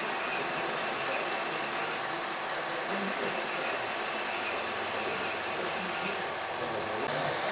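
Radio-controlled model excavators working: a steady mechanical hiss and rumble, with a high-pitched whine that rises, holds for about two seconds and drops away, twice.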